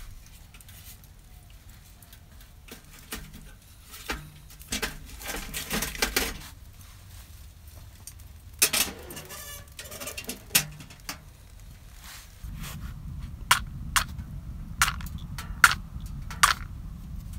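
Rustling and light knocks of hands handling dry birch bark and pieces of split firewood. Later a matchbox is handled, with several sharp clicks over a steady low rumble that starts suddenly about twelve seconds in.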